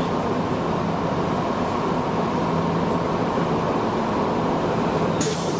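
A 3000-series electric train running along the line, heard from the cab: steady rolling and motor noise with a steady tone through it. A brief hiss comes shortly before the end.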